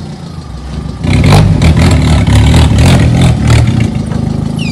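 Lowered VW Saveiro's engine idling, then revving hard about a second in while the car's front bumper scrapes and clatters against the ground for a couple of seconds. Then it settles back toward idle.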